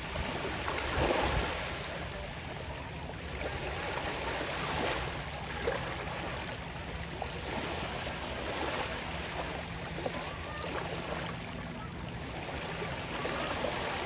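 Small waves lapping and breaking at the water's edge on a sandy beach, the wash of water over sand swelling and easing every few seconds.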